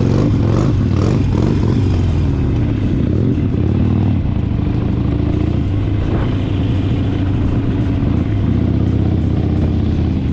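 Harley-Davidson Sportster XL1200X's 1200 cc V-twin running steadily while riding along at town speed, heard from the rider's seat, with some rise and fall in engine pitch in the first few seconds.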